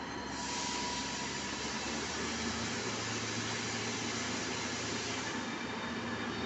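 SN84 diesel multiple unit moving off slowly, its diesel engine running with a steady low hum under a loud hiss of air that starts about half a second in and stops about five seconds in.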